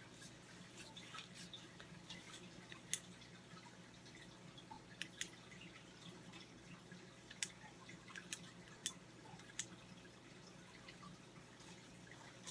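Faint, scattered clicks and taps of alkaline batteries being handled and fitted into a flashlight's battery carrier, over a low steady hum.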